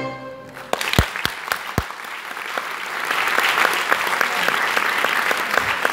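The last note of the orchestral music dies away, then audience applause begins: a few loud single claps about a second in, then clapping swelling into full, steady applause.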